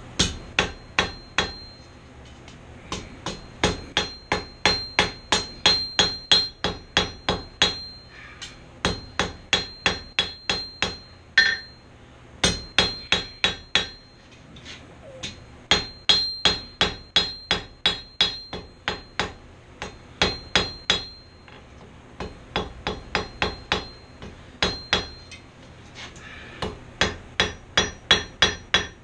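A hand hammer strikes hot steel on an anvil in quick runs of about three blows a second, broken by short pauses, and many blows leave a high ring from the anvil. This is the forging blow pattern of drawing out the tines of a barbecue fork.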